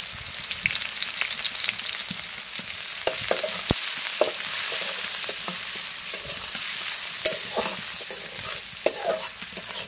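Sliced onions and whole spices sizzling in hot oil in a metal kadai, stirred with a metal spatula that clicks and scrapes against the pan now and then. The sizzle cuts off abruptly near the end.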